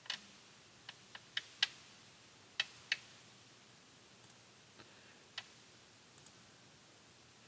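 Scattered sharp clicks of a computer mouse and keyboard, about a dozen in all and most of them in the first three seconds, over faint room tone.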